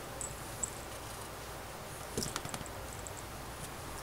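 A hand patting and rubbing a cat's furry rump: soft rustling, with a quick cluster of pats about halfway through. No meow is heard.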